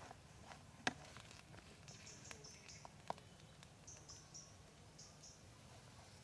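Faint, quiet bubbling of water boiling in a steel wok over a wood fire, with a few sharp clicks, the loudest about a second in. Faint short high chirps come several times.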